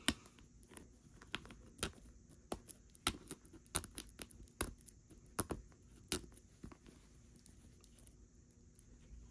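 Plastic shrink wrap on a smartphone box crackling and crinkling as fingers pick and pull at it, in irregular sharp clicks.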